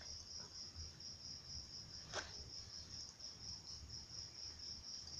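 An insect chirping steadily in a fast, even high-pitched pulse, about six beats a second, with one sharp click about two seconds in.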